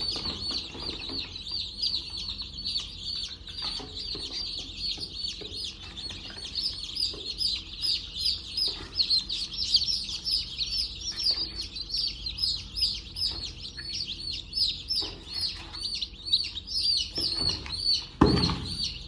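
Chicks peeping continuously, many short high chirps overlapping without a break, with a louder low sound near the end.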